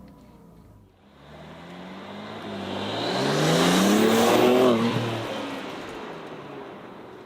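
2021+ BMW G8X M3/M4 with its 3.0-litre S58 twin-turbo straight-six and an open airbox intake, accelerating as it drives past. The engine note rises as the car approaches, is loudest about four seconds in, then drops in pitch and fades as it moves away.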